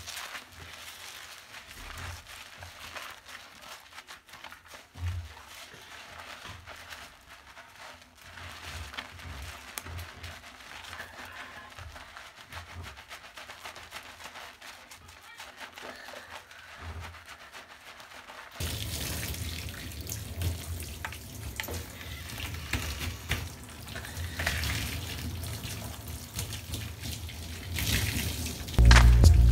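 Hands scrubbing shampoo lather through wet hair, with soft wet rubbing and squishing. About two-thirds of the way through, water starts running and pouring over the hair to rinse it. Loud music cuts in at the very end.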